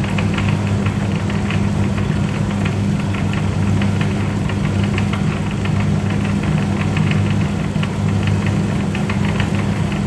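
Electric noodle-cutting machine running, with a steady motor hum under a quick, irregular clatter of its moving parts.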